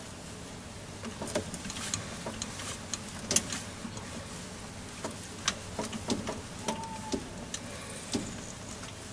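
Myford lathe running with a steady motor hum while a drill held in the tailstock chuck is fed into the turning workpiece. Irregular sharp clicks and ticks come from the cut, with a brief squeal about seven seconds in.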